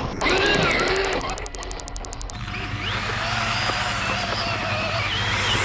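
Electric motor of a Losi Promoto-MX RC motorcycle whining, its pitch rising and falling as the throttle is worked. Its tyres slide and spray loose dirt through a turn.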